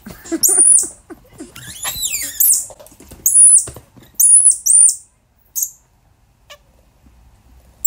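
Squirrel monkey giving several shrill, high-pitched squeals in short bursts, one sliding down in pitch, protesting as a ring-tailed lemur grabs at it. The calls stop about five seconds in.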